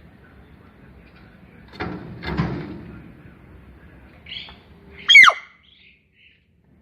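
Pet hill myna giving one loud, sharp squawk about five seconds in, a quick call that falls steeply in pitch. It is preceded by a couple of softer rough sounds around two seconds in.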